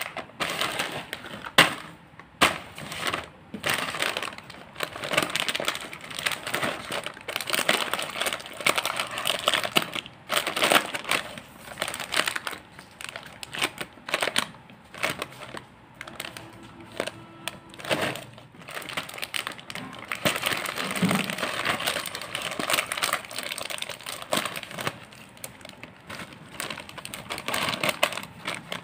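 Plastic-and-foil snack packet crinkling and crackling as hands press, squeeze and turn it, then open it. Irregular crisp crackles come and go throughout.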